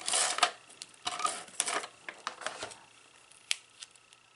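Paper die-cut pieces rustling and sliding as they are handled and laid down on cardstock, in three short bursts, then two light clicks near the end.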